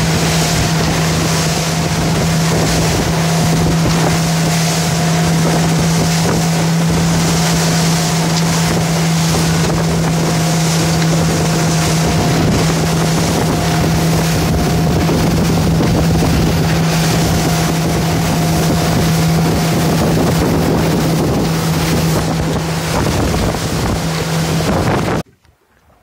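Motorboat running at speed offshore: a steady engine drone under loud wind buffeting on the microphone and the rush of water and spray off the hull. It cuts off suddenly near the end.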